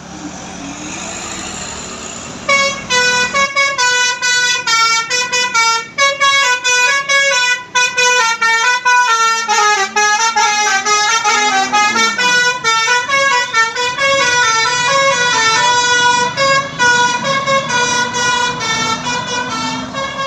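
A bus's telolet musical air horn playing a long tune of quick stepped notes, starting about two and a half seconds in over road traffic noise.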